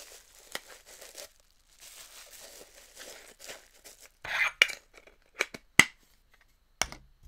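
Plastic wrapping crinkling and tearing as a Funko Soda vinyl figure is unwrapped, followed by a few sharp clicks and knocks of hard plastic being handled and set down on the desk.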